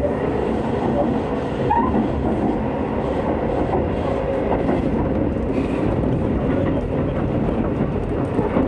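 A Hokuso Railway 9000 series electric train running at speed, heard from inside the passenger car: steady wheel-on-rail and running noise.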